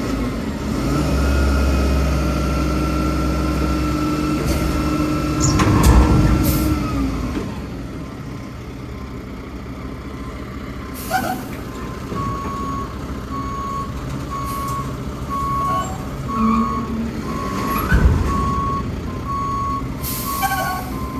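Mack Granite roll-off truck: the diesel engine runs under load, with a loud air-brake hiss about six seconds in. Then the truck's new backup alarm starts beeping steadily, one tone about once a second, as it reverses, with a few short air hisses between.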